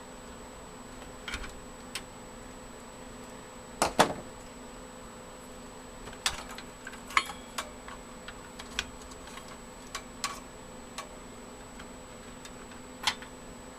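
Scattered plastic clicks and knocks of power cables and connectors being handled inside a desktop computer case. The loudest is a sharp double click about four seconds in. A faint steady hum runs underneath.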